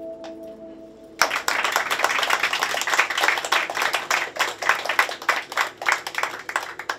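The last held notes of a homemade erhu-violin and a ten-string tiple end about a second in. A small audience then applauds, louder than the music, with dense clapping to the end.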